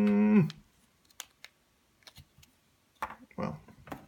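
A man's short closed-mouth hum, falling off at its end, then light clicks and taps of small plastic camera and 3D-printed case parts being handled, with some rustling and knocking about three seconds in.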